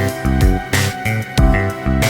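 Background music with a steady beat: a kick drum about every 0.6 s under pitched instruments.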